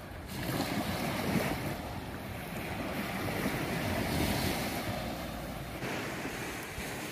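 Wind buffeting the microphone over the steady wash of waves on the shore.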